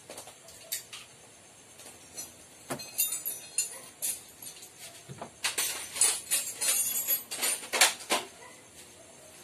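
Metallic clicking and jingling rattles from work on a Bajaj RE three-wheeler's gear-change cable and handlebar gear shifter, coming in scattered clicks, a short cluster about three seconds in, and a dense run from about five and a half to eight seconds.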